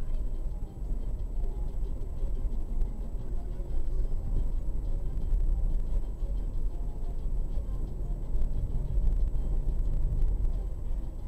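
Car driving along a town street, heard from inside the cabin: a steady low rumble of engine and tyre noise.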